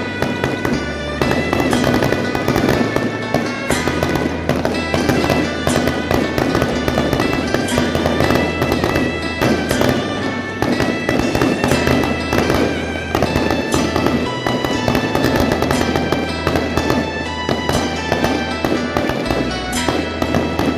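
Electronic firecracker machines playing a dense, continuous firecracker crackle, mixed with loud music over a steady low bass.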